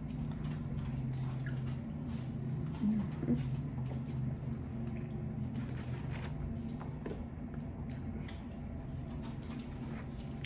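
Close-miked chewing and mouth sounds of someone eating Mongolian beef and rice, with many small scattered clicks over a steady low hum. There is a slightly louder bit about three seconds in.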